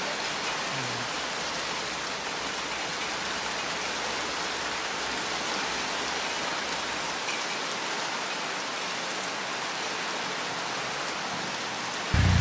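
Steady rain falling and pattering on wet ground. Just before the end, a sudden louder low rumble takes over.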